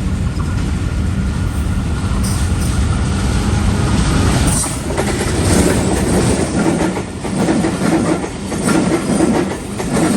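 Bangladeshi intercity train passing at speed. A heavy rumble gives way, about halfway through, to the rhythmic clickety-clack of the coaches' wheels over the rail joints.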